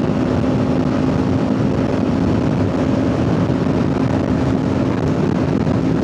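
Kawasaki Ninja 500's parallel-twin engine running at a steady cruising speed, its pitch holding level, with wind rushing over the helmet microphone.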